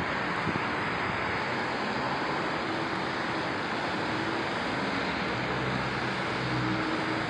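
Cars driving past on a wet street, their tyres hissing on the wet asphalt in a steady wash of noise, with a low engine hum coming up for a moment near the end.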